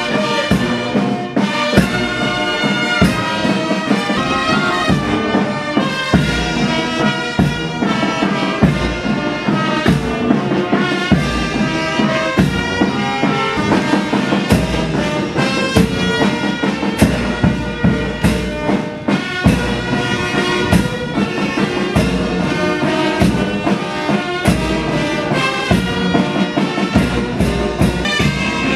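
Brass band playing a march, with a steady drum beat under the horns.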